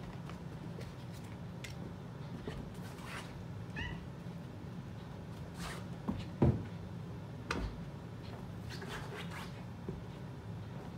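Siamese cat giving a few short meows, the loudest one sliding down in pitch about six and a half seconds in, amid scattered light knocks from a puppy jumping against the sofa.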